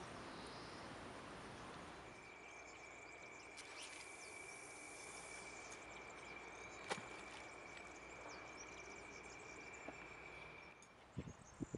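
Faint outdoor ambience: an even background hiss with a thin, steady high whine through most of it, and a single sharp click about seven seconds in.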